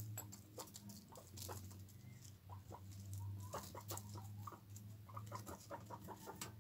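Cavies giving short, quick clucking chirps in runs, with light pattering over gravel and dry straw, over a steady low hum.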